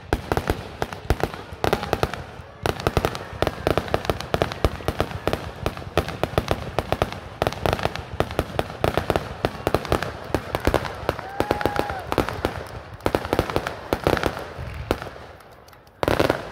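Fireworks crackling with dense, rapid pops as aerial shells and comets go off. The crackle thins out near the end, and a single loud burst follows.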